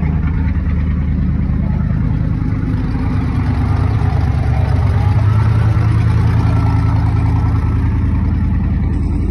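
1970 Chevrolet C20 pickup's engine running steadily after sitting a long time, picking up a little in the middle.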